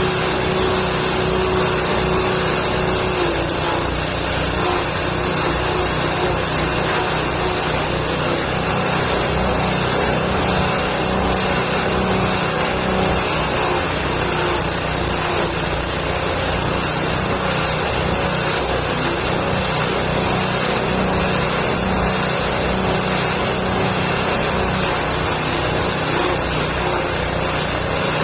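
Livestock-feed chopper machine running steadily, its motor and blades making a constant mechanical drone while it shreds indigofera and gamal branches into goat feed.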